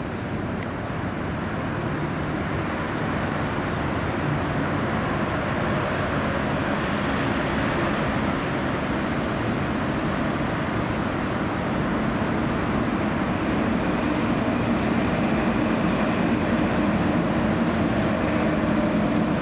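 Steady rumble of vehicle noise with faint humming tones, slowly growing louder toward the end.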